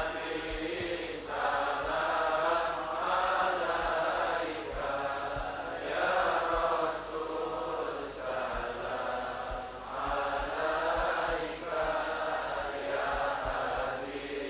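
A congregation of many voices chanting a shalawat hymn to the Prophet Muhammad in unison, in sung phrases of about a second each.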